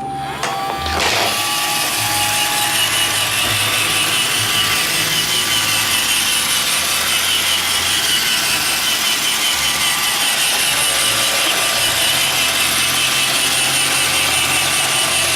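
iRobot Roomba 561 robot vacuum starting a cleaning run. The last note of its start-up tune sounds at the very start, its vacuum fan and brushes spin up about a second in, and then it runs with a steady whir.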